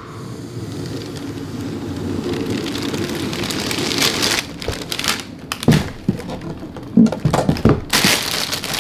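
A snug cardboard shoebox sliding out of its sleeve: a steady rubbing hiss that builds over about four seconds. Then, from about halfway, several short knocks and rustles, with tissue paper crinkling as the box comes open.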